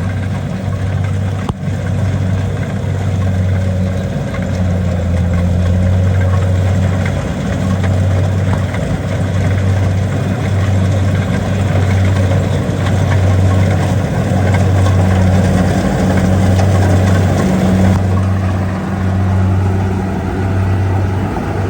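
Kubota DC70 combine harvester running steadily, its low engine hum swelling and dipping about once a second over a dense mechanical noise.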